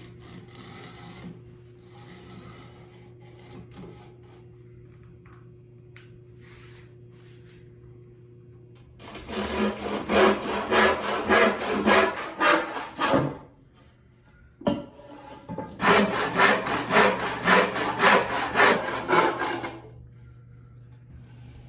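Handsaw cutting wood in even back-and-forth strokes, about two a second. There are two bouts of about four seconds each, with a short pause and a single knock between them.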